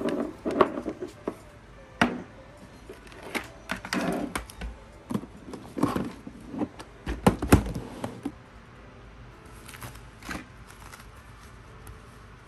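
A run of irregular clicks and knocks, like things being handled and set down close to the microphone. They stop about eight seconds in, and two more follow soon after.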